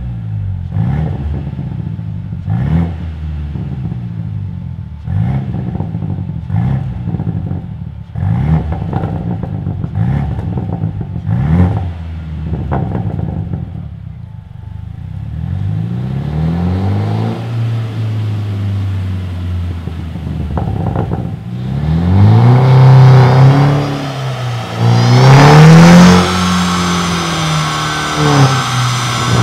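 Tuned Mercedes-Benz C200 (W205) turbocharged four-cylinder petrol engine through an Armytrix exhaust, revved in a string of quick blips with sharp pops between them, then in longer, higher rev sweeps that are loudest in the last third. The pops come from the deactivated overrun fuel cut-off.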